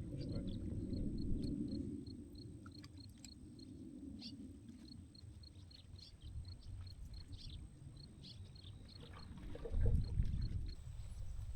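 A high, regular chirp repeating about three times a second, over low rumbling noise that is stronger in the first two seconds and swells again near the end.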